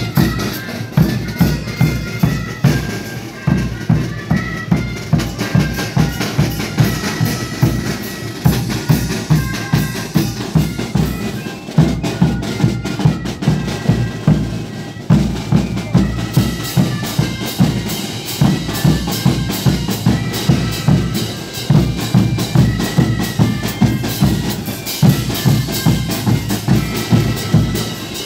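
Marching brass band playing. Bass drums, a snare drum and hand cymbals keep a steady beat under a melody of held notes from the wind instruments.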